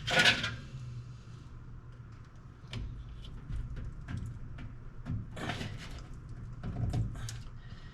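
Hands working a plastic wiring bulkhead connector into its clip: scattered clicks, knocks and rustling, with a short scrape at the start and a few dull thuds, over a steady low hum.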